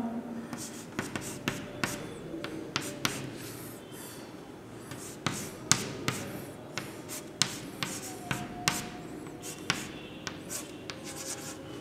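Chalk writing on a chalkboard: irregular sharp taps and short scrapes as characters and plus signs are written.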